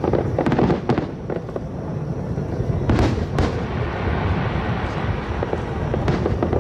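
Large fireworks display: a continuous stream of bursts and crackling reports over a low rumble, with two sharper, louder bangs about halfway through.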